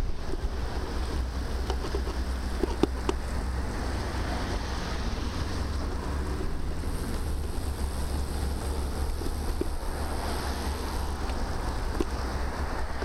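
Wind buffeting the microphone of a camera mounted on a moving bicycle, a steady low rumble with a few light clicks about two to three seconds in.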